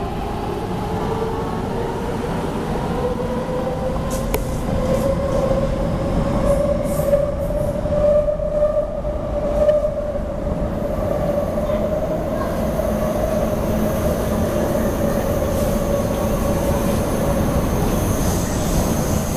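Hong Kong MTR K-Train electric multiple unit (Hyundai Rotem) pulling away into a tunnel: the whine of its electric drive rises in pitch over the first few seconds, then holds steady over the rumble of the wheels on the rails. A thin, high wheel squeal comes in near the end.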